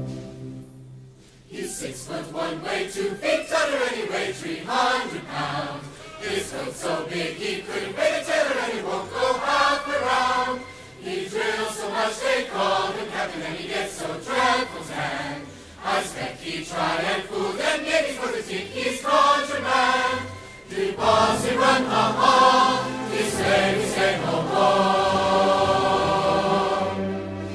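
A choir singing a song, coming in about a second and a half in after a brief pause, and ending on a long held chord near the end.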